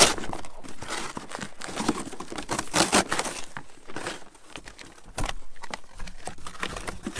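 Packaging crinkling and tearing in irregular rustles as new coil springs are unwrapped from their box.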